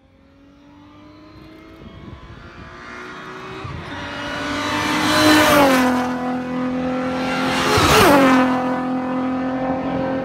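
Cars passing at speed down a race-track straight. Engine sound builds from faint to loud as they approach, then two cars go by in turn, the first about five seconds in and the second about eight seconds in, each with a drop in pitch as it passes.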